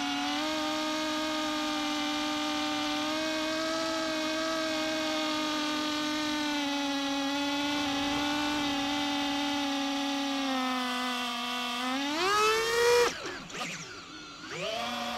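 Small FPV quadcopter's electric motors and propellers whining steadily at a near-constant pitch, heard from the onboard camera. About twelve seconds in the pitch sweeps sharply up as the throttle is punched, then wavers and drops with the sound falling away, before settling back into a steady whine near the end.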